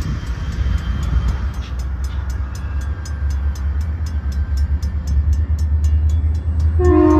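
Light diesel locomotive approaching with a low steady rumble while the grade-crossing bells ring in a steady rapid beat. Near the end the locomotive's multi-chime horn starts to blow, a chord of several tones.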